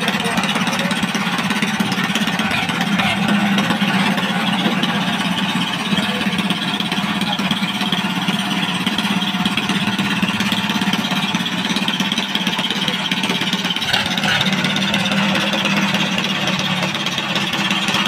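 Fishing boat's engine running steadily.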